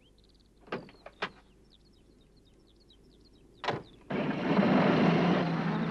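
Birds chirping in a quiet scene, with a couple of light clicks about a second in and a van door slamming at about three and a half seconds. Right after, the post van's engine starts and runs loudly with a steady low hum.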